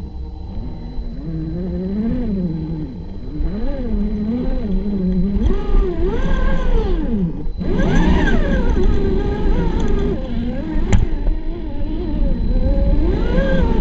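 Scale RC rock crawler's electric motor and gear drive whining as it climbs over rocks, the pitch rising and falling with the throttle and briefly dropping away about halfway through. A steady low rumble sits underneath, and a sharp click comes about eleven seconds in.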